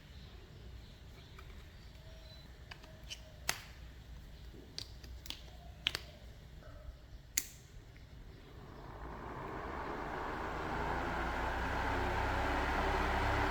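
A few light clicks of small parts being handled, then a small homemade battery-powered fan starting up about two-thirds of the way in, its whir of air building to a steady level.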